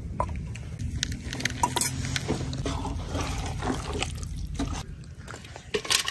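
Wooden spoon stirring a thick chicken curry in an aluminium pot, wet squelching with scattered knocks and scrapes against the metal. Just before the end the curry is spooned onto a steel plate with a sharp clink.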